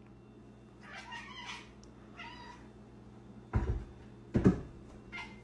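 Domestic cat meowing softly a few times, with two dull thumps in the middle, the loudest sounds in this stretch.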